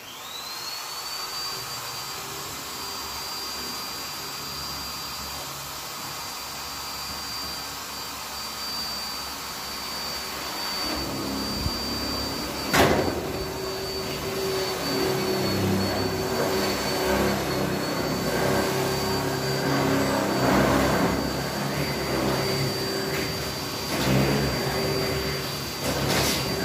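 Power drill running continuously at a steady high whine, driving a tek screw into a steel C-purlin that is too hard for the screw to bite. It spins up at the start; about eleven seconds in, a lower grinding chatter joins as the screw tip works against the steel, with one sharp click soon after, and the motor winds down at the end.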